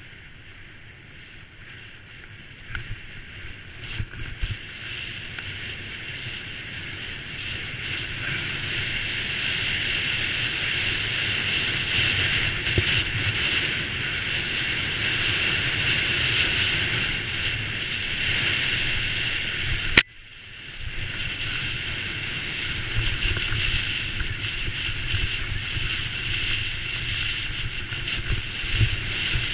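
Mountain bike rolling downhill over a rough track and trail, heard from a helmet camera: a steady high hiss that builds with speed, over irregular low knocks and rumble from the ground. About two-thirds through a sharp click cuts the noise off, and it builds up again.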